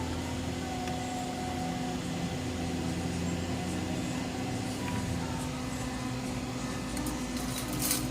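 A steady mechanical hum with a few faint clicks, and a short hiss just before the end.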